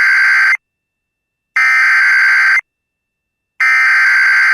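Emergency Alert System SAME header: a buzzing digital data signal sent as three bursts of about a second each, a second apart. These bursts encode and open a new alert, a severe thunderstorm warning.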